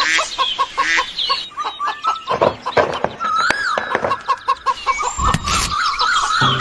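Chickens clucking in a quick run of about five clucks a second, with rising and falling squawks over them. Two short, loud noisy bursts break in, about two and a half seconds and five seconds in.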